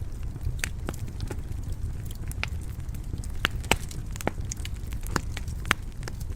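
Wood fire crackling in a stone fireplace: irregular sharp pops and snaps over a steady low rumble of the flames, with a few louder pops in the second half.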